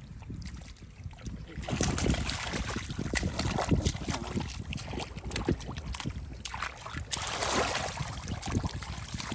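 Irregular splashing and sloshing in shallow water, getting busier and louder about a second and a half in.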